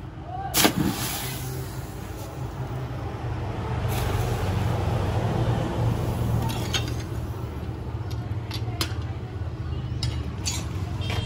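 Hot steel knife blade plunged into a quench bath: a sharp strike on entry, then hissing and bubbling that swells for several seconds and fades as the blade hardens. A steady low hum runs underneath, and a few sharp clicks come near the end.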